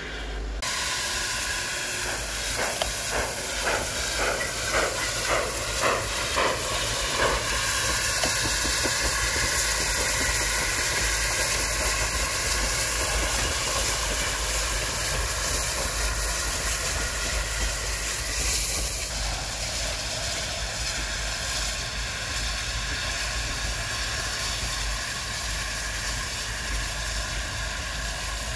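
Steam locomotive working a passenger train, with a loud, steady hiss of steam throughout. A couple of seconds in comes a run of slow, evenly spaced exhaust chuffs lasting several seconds.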